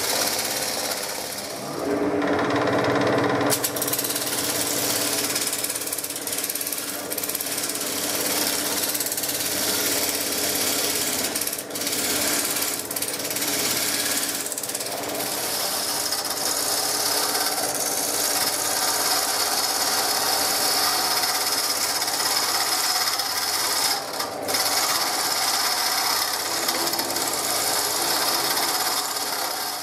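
Woodworking power tool cutting and shaping a chestnut workpiece, with a continuous rattling machining noise and a few brief dips, cutting off suddenly at the end.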